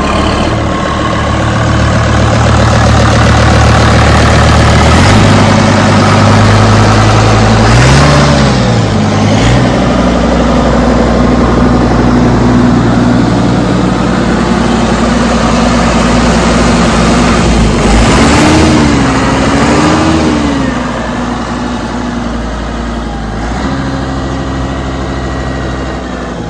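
Kubota M125X tractor's diesel engine idling steadily. Its revs briefly rise and fall about eight seconds in, and again near the twenty-second mark.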